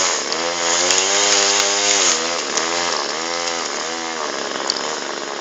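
McCulloch two-stroke chainsaw cutting into a tree at high revs, its engine pitch sagging and recovering several times in a row as the chain loads up in the cut. Near the end the engine note drops away.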